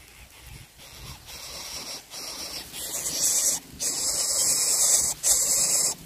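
Hissing that builds from about a second in and is loudest over the last three seconds, with two brief breaks: a nestling bird hissing while it is fed.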